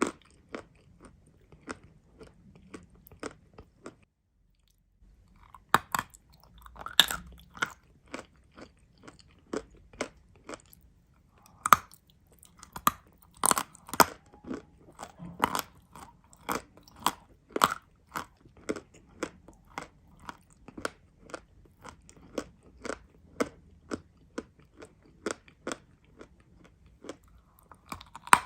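Close-up biting and chewing of crunchy edible clay: a steady run of sharp, dry crunches about two a second. There is a short pause about four seconds in, then some louder bites.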